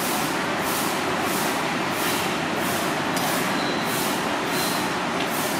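Steady loud street traffic noise with a faint constant hum, and a high hiss that pulses about twice a second.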